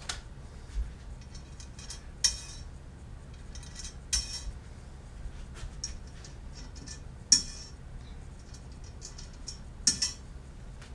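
Small metal hardware, T-nuts and screws, clinking and clicking as it is handled over aluminium parts tins: about half a dozen separate sharp clinks spread over several seconds.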